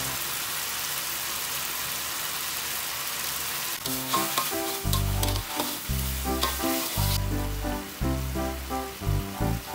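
Chicken and chili-oyster sauce sizzling in a wok as it is stirred with a metal spatula. About four seconds in, background music with a bass line comes in over the sizzle.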